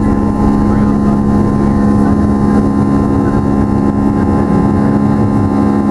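Boeing 757-200's Pratt & Whitney PW2037 turbofan heard from the cabin over the wing during climb-out at high thrust: a steady buzzsaw drone, a stack of steady tones over a rumble, from the fan blade tips running supersonic.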